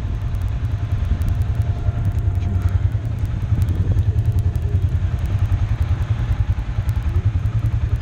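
Side-by-side off-road vehicle engine running, heard from the seat as a steady, pulsing low drone while the machine drives along a dirt trail.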